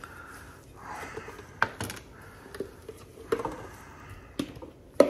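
Kitchen prep handling: a knife and raw chicken pieces on a plastic cutting board, with a plastic tub. There are a handful of sharp taps and knocks, the loudest near the end, and soft handling noise between them.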